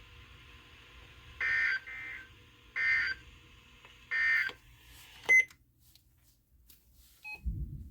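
Weather radio sending the Emergency Alert System end-of-message data signal: three short, buzzy digital bursts about a second apart, marking the end of the warning broadcast. A sharp click follows as the radio's audio cuts off, and there is a low thump near the end.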